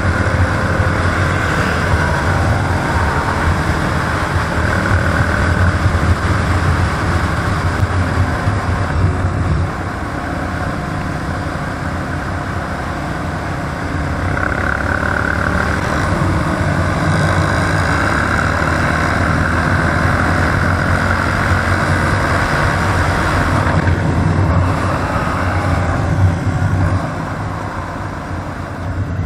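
ATV engine running under way, with the engine sound easing off for a moment about ten seconds in and again near the end.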